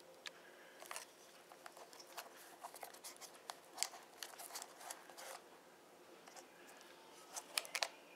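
Scattered sharp clicks and short crinkly rustles of hands handling the wiring, plastic connectors and foam airframe of a small RC plane. The clicks cluster through the middle and again near the end.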